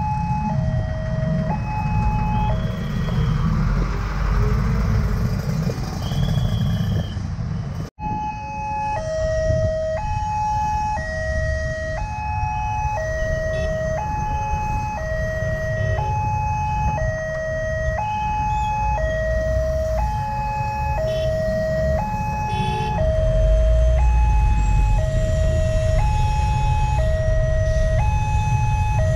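Electronic warning siren of a railway level crossing, alternating between a higher and a lower tone about once a second, over a steady low rumble that grows heavier in the last few seconds. The warning signals that a train is approaching and the gates are closing.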